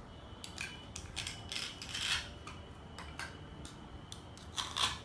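Light clicks and clatters of small burger pieces and kitchen items being picked up and set down, a run of quick knocks with the loudest about two seconds in and again near the end.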